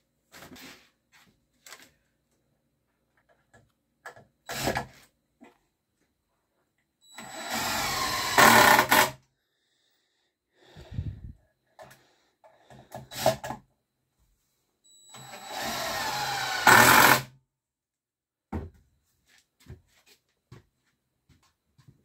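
DeWalt cordless driver driving screws into the wooden ladder twice, each run lasting about two seconds and getting louder at its end. Short knocks and clicks of wood and tool handling come between the runs.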